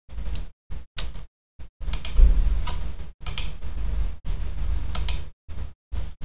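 Computer mouse clicking, a few sharp ticks, over a low hum and room noise from the microphone that cut in and out abruptly several times.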